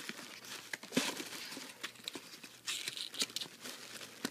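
Tissue paper and plastic packing wrap crinkling and rustling as a hand pushes through them, in irregular crackly bursts, busiest about a second in and around three seconds in.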